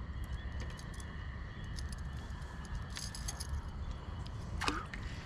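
Small metallic clicks and rattles of a fishing rod and reel being cast and worked, over a low rumble of handling noise. A short falling squeak comes near the end.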